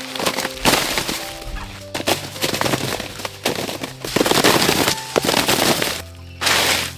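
Loud, irregular crackling and rustling of dry plant material, with a short pause about six seconds in, over soft background music.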